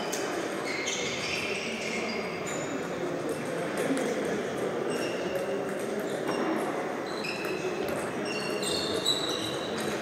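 Table tennis rally in a reverberant sports hall: the plastic ball knocking on bats and table, with many short high pings. Steady crowd chatter from other tables runs underneath, and there is one sharp loud hit near the end.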